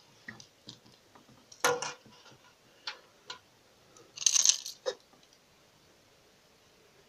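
Light clicks from a hard plastic minnow wobbler and its treble hooks being handled over a plastic tub of water, then about four seconds in a short splash as the lure is dropped into the water, followed by a dull knock.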